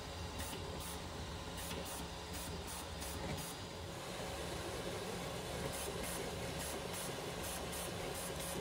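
FLSun Super Racer delta FDM 3D printer running a print: a steady fan hiss and hum with stepper motors whirring in short, irregular spurts as the print head moves.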